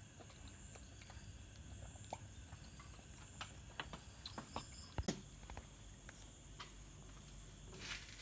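Faint scattered clicks and light taps, the most distinct about five seconds in, over a steady high-pitched whine.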